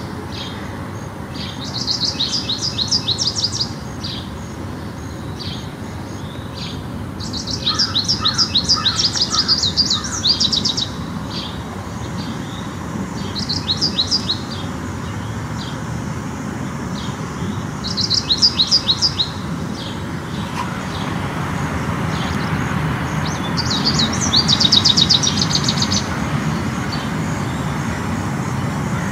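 A songbird singing about six phrases of quick, repeated high notes, each a second or two long and a few seconds apart. Under it runs a steady low traffic rumble that grows louder in the last several seconds.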